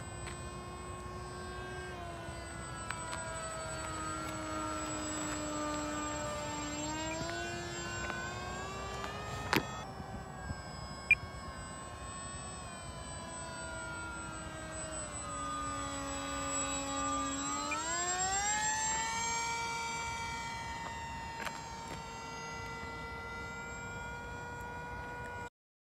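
Brushless electric motor and 7 x 4.5 pusher propeller of a 3D-printed RC ICON A5 whining as the plane flies overhead. The pitch falls and rises with the throttle, dipping twice and climbing steeply near the end, on the fixed motor and prop setup. Two sharp clicks sound near the middle.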